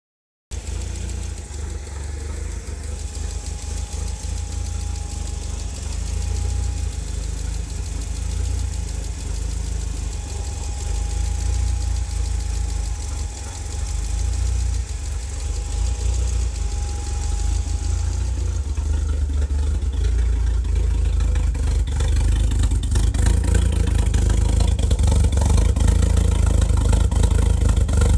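Mitsubishi Starion's turbocharged G54B 2.6-litre four-cylinder idling with an aftermarket 284H camshaft; a steady idle that grows somewhat louder over the last several seconds.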